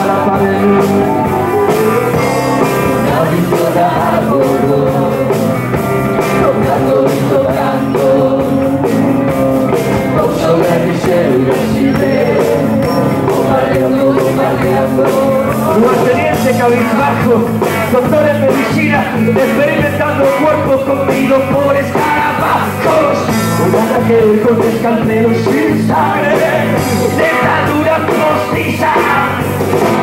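Rock band playing live: electric guitars, bass and drums, recorded from the audience on a camcorder's built-in microphone.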